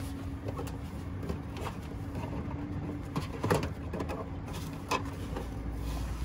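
A steady low hum with a couple of light knocks in the second half, as a hand touches the plastic casing of a drain pump.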